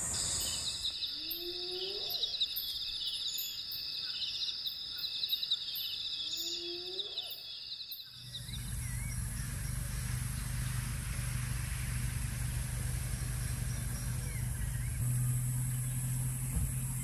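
Night bush chorus of insects with a steady pulsing shrill, through which a spotted hyena gives two rising whoop calls about five seconds apart. About eight seconds in this gives way to a steady low hum, louder near the end.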